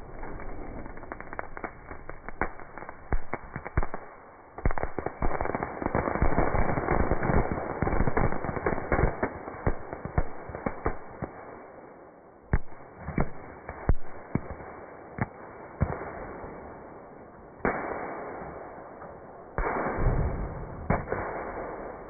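Fireworks crackling and popping as they burst through a microwave oven: dense rapid crackle with scattered sharper bangs, thinning to separate pops after about ten seconds. Near the end there are a couple of short rushing bursts.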